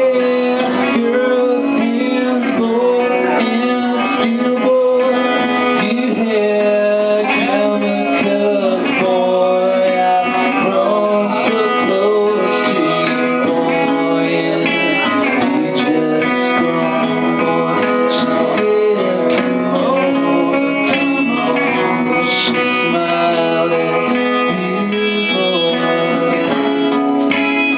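A band playing a song live: strummed guitar with singing over it.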